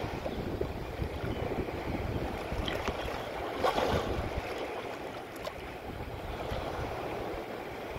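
Wind buffeting the microphone over choppy open water, with waves washing and splashing, and a louder splash just before the middle.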